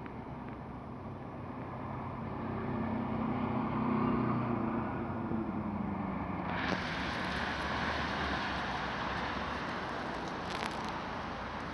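Tram running around a turning loop, heard from on board: a low rumble with a motor hum that swells a few seconds in and fades, then a sudden broad rise in hissing noise from about halfway through.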